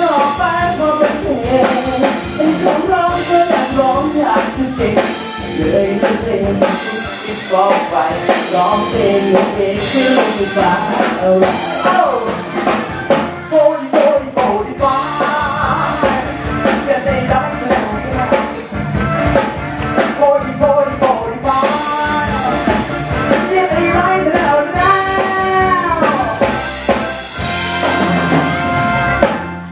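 A man singing into a handheld microphone through the stage sound system, over a backing with a steady drum beat.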